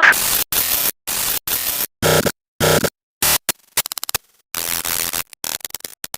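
Radio static sound effect: loud hiss in choppy bursts that keep cutting in and out, with a short stretch of rapid buzzing clicks about four seconds in.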